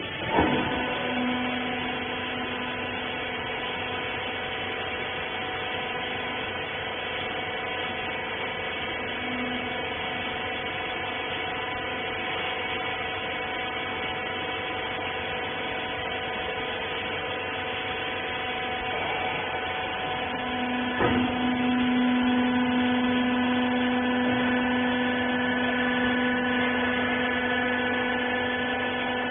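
Rag baler's electric hydraulic power unit running with a steady multi-tone hum and whine. There is a clunk just after the start and another about two-thirds of the way through, after which a lower hum grows louder.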